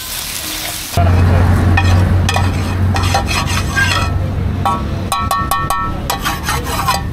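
Instant noodles frying and sizzling in a pan. About a second in the sound turns suddenly louder, with a metal utensil scraping and clinking against the pan over a steady low hum.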